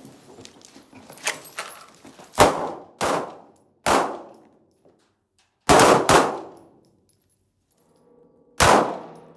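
Handgun shots fired one at a time, six in all at uneven spacing, the first about two and a half seconds in and two close together around six seconds.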